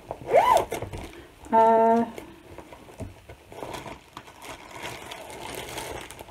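A fabric project bag and a clear plastic bag being handled and rustled, with one short, steady buzz about one and a half seconds in.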